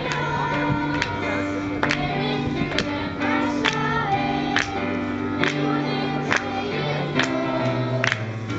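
Children's choir singing a song into a microphone, accompanied by a stage keyboard with held bass notes and a steady beat about once a second.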